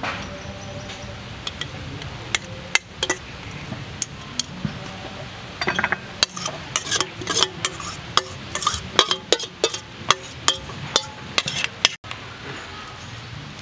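Metal spoon and chopsticks clinking and knocking against a metal platter while a salad is tossed and heaped. The clicks are irregular, a few at first, then coming thick and fast from about halfway through.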